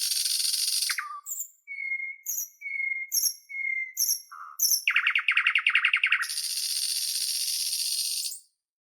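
Nightingale singing: a harsh rattling phrase, then three slow clear whistles with sharp clicks, a very fast run of repeated notes, and another long rattle that stops near the end.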